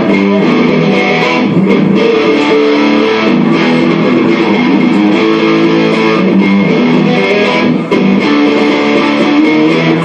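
Rock music led by guitar, with a bass line and no singing.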